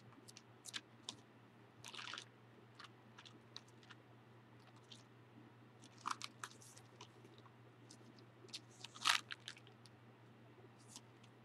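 Faint paper-handling sounds from an old Bible's thin pages: scattered light crackles and clicks, with two short rustles about two seconds in and about nine seconds in.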